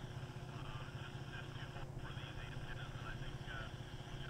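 Open-air ambience: a steady low rumble of wind on the microphone, with scattered faint short bird chirps.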